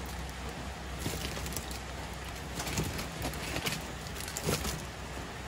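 Small die-cast metal toy cars being handled and set down, with a few light clicks and knocks and some paper rustling, over a steady background hiss.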